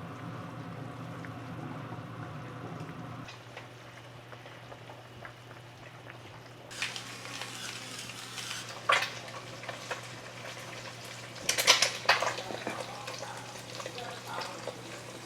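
Food frying and sizzling in a pan over a steady low hum. The sizzle starts a little before halfway, with sharp clatters of a utensil against the pan, the loudest a few seconds before the end.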